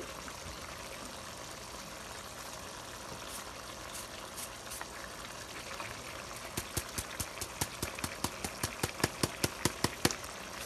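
A braise of beef tendon and white radish simmering steadily in the pan. From about two-thirds of the way in, a quick run of sharp ticks, several a second, as sea salt is shaken from a plastic shaker onto a wooden spatula for seasoning.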